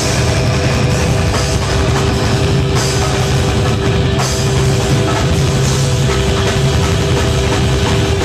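Live rock band playing loud: electric guitars, bass guitar and drum kit together, with a steady held note ringing under the playing.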